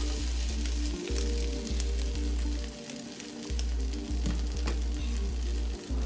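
Omelette frying in a pan, a steady sizzle with small crackles, over background music with a heavy bass.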